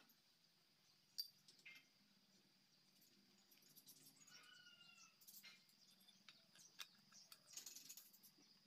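Near silence with a few faint clicks and taps as tools and parts are handled on a pickup's front differential housing, the sharpest about a second in and several more near the end. A faint, slightly falling animal call sounds around the middle.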